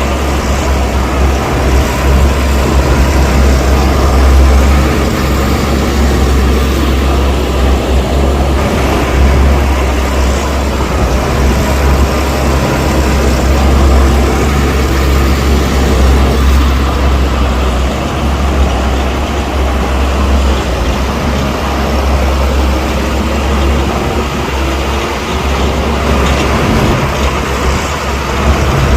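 Heavy diesel earthmoving machinery running steadily, a deep continuous engine drone with mechanical clatter over it.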